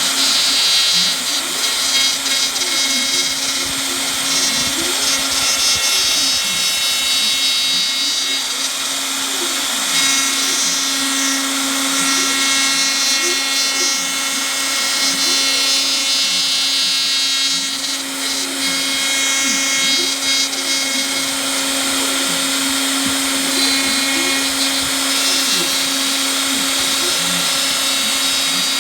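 Home-made CNC router running: a steady motor whine, with a lower whine that keeps gliding up and down in pitch as the machine moves.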